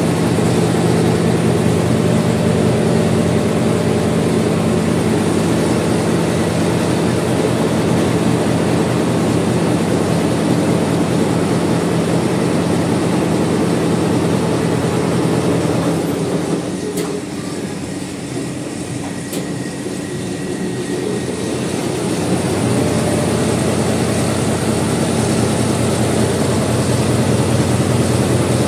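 Multi-head Richpeace embroidery machine running, its row of needle heads stitching with a fast, steady mechanical clatter and hum. The sound drops for a few seconds past the middle, then returns to full level.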